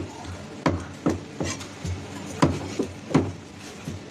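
Heavy cleaver chopping bull shark into steaks on a thick round wooden chopping block: a series of sharp knocks, about six in four seconds at uneven spacing.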